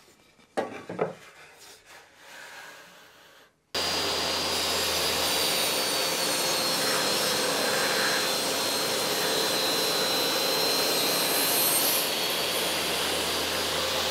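A couple of knocks about a second in, then a Bosch table saw running and ripping glued-up beech, a loud steady whine that starts suddenly about four seconds in.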